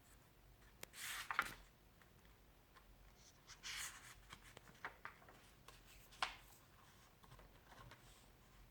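Faint paper rustles and a few soft clicks from a book's pages being handled and turned, in three short spells.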